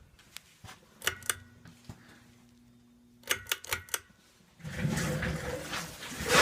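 Ceiling fan pull-chain switch clicking several times, with a faint low motor hum for a couple of seconds between the clicks. Near the end comes a loud, rough handling noise.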